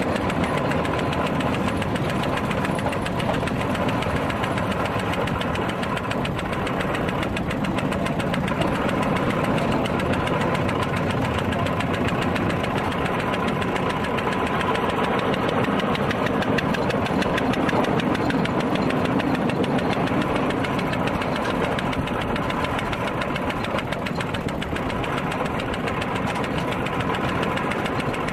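Small engine of a narrow-gauge 'kuli' rail motor car running steadily with a fast, even beat as it hauls a trailer along the track.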